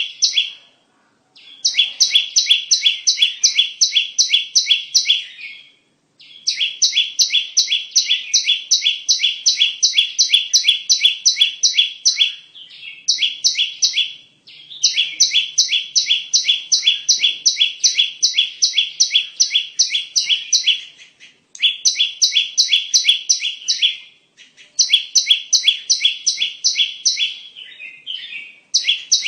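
Prenjak (prinia) song played as a bird-lure call: long runs of rapid, sharp, evenly repeated chirps, about four a second, in phrases of a few seconds separated by brief pauses.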